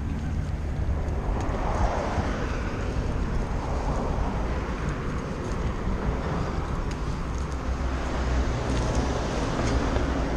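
Street traffic heard from a moving bicycle: a steady rumble of cars and road noise, with wind on the microphone.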